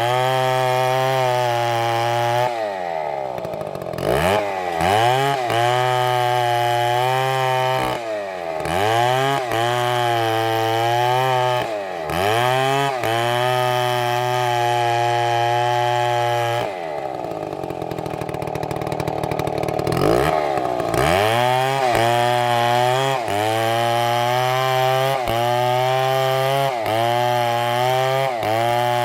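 Two-stroke chainsaw running at high revs, its pitch dropping sharply and climbing back again and again, every second or two. For a few seconds past the middle it falls to a lower, rougher running before revving up again.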